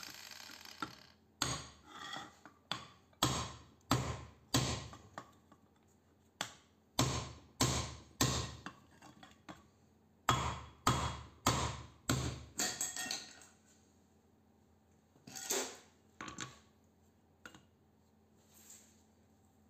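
Club hammer striking a small transformer's laminated steel core against a steel plate. It is a run of sharp metallic blows, about two a second in short groups, knocking the laminations loose to free the copper winding. The blows stop about two-thirds of the way through, and only a few lighter metal clinks follow.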